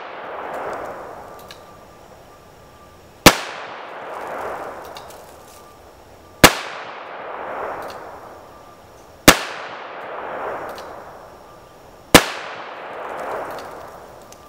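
Smith & Wesson Model 10 .38 Special revolver firing 130-grain full metal jacket rounds: four single shots about three seconds apart. Each shot is followed by an echo that swells and dies away over a couple of seconds.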